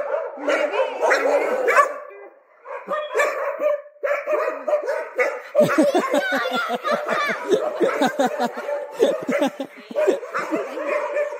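A pack of street dogs barking at once, many short overlapping barks and yips. They ease briefly about two seconds in, then bark densely and rapidly over the second half.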